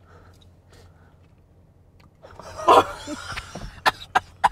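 A woman choking and gagging, then coughing in short sharp bursts, starting about two seconds in, with a bean stuck at the back of her throat.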